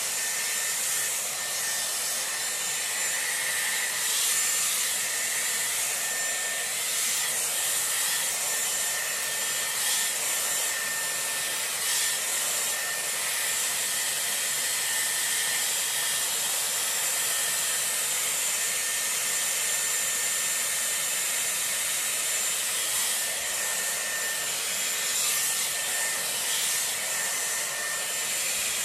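Dyson Airwrap with its round brush attachment running on high speed: a steady rush of air with a faint high whine, and bristles rasping through the hair now and then.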